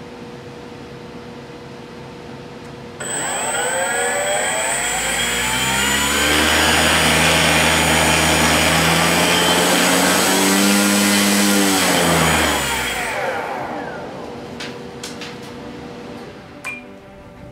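Small brushless electric motor spinning a propeller. About three seconds in it is throttled up with a rising whine over the rush of the propeller, held at high speed with a brief dip and surge near the ten-second mark, then throttled back and winding down around thirteen seconds.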